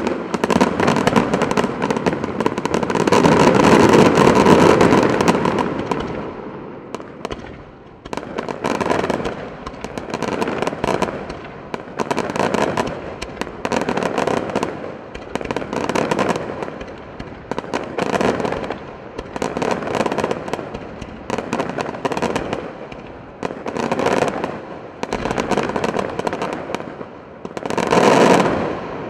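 A daytime fireworks barrage of rapid, crackling explosions. A dense run of cracks, loudest about four seconds in, thins out. Then clusters of cracks repeat about every one and a half seconds, with one more loud volley near the end.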